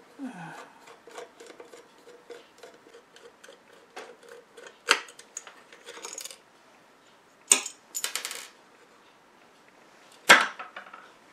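Small clicks, taps and clinks of batteries and metal battery contacts being handled and pushed into a meter's battery holder that they don't fit well, with a few louder knocks, the loudest a little after ten seconds in.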